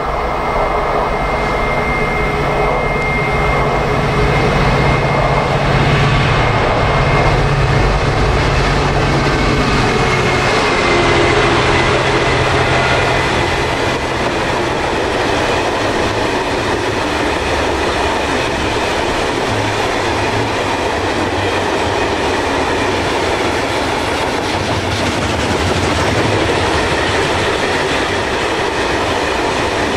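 Freight train running past, a continuous loud noise of wheels on rails with a faint high tone over it during the first dozen seconds.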